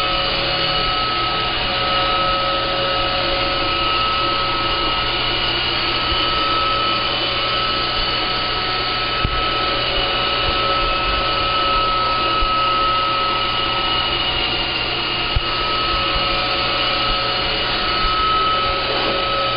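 Roomba robot vacuum running steadily: a whirring motor and brush noise with a steady high whine, and a few brief clicks scattered through it.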